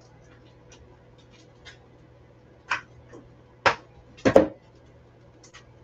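Eggs being cracked into a mixing bowl: three sharp cracks and taps of eggshell between about two and a half and four and a half seconds in, the last one the loudest, with faint shell and hand clicks around them.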